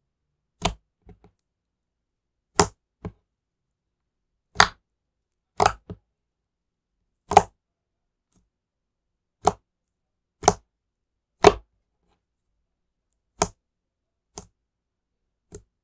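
Blue slime popping and squelching as fingers poke and press into it, trapped air bursting in short sharp pops, about one a second at uneven spacing, with silence between.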